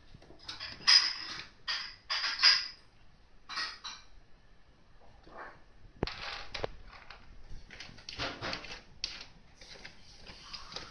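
An American Curl cat pawing and scratching at pellet litter in a plastic litter box to cover its poop: irregular bursts of rustling, scraping pellets. The loudest bursts come about a second and two and a half seconds in, with quieter scratching later on.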